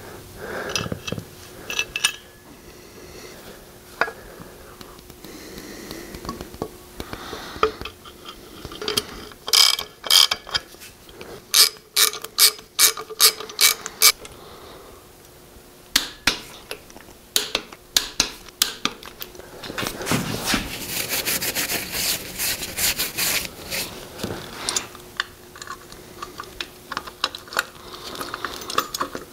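Socket ratchet clicking in bursts as water pump bolts are run in, with a fast spell of clicking in the middle and a few knocks of parts being handled.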